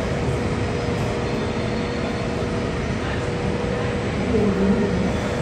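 Jet aircraft engines running with a steady rumble and an even, steady hum. A short voice is heard briefly near the end.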